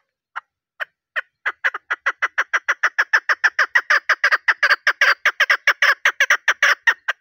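Female chukar partridge calling: a few spaced clucking notes that quickly speed up into a fast, even run of about six notes a second, stopping abruptly near the end. This is the female's call that hunters play to draw males into answering.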